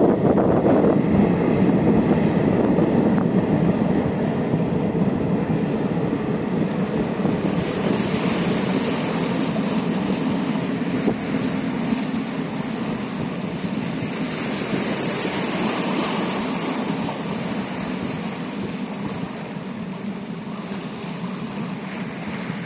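Kawasaki-built Boeing 929 jetfoil Rainbow Jet under way: a steady rush of its gas turbines, waterjets and water, with wind on the microphone. About a third of the way in the sound turns hissier, and it slowly grows fainter throughout.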